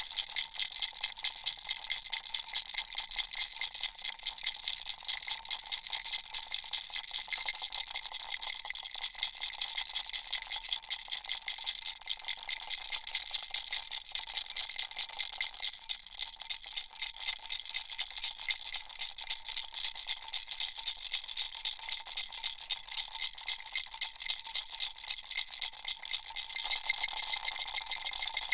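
Baby rattle shaken without pause: a dense, rapid rattling of small beads, with a faint steady ringing tone underneath.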